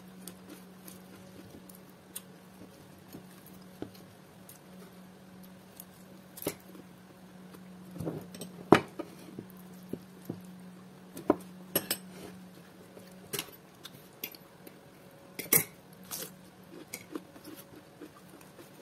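A metal spoon clinking against a ceramic plate and a small glass bowl while sambal is served and eaten, in scattered sharp clinks, the loudest about nine seconds in. A low steady hum runs underneath and fades out about two-thirds of the way through.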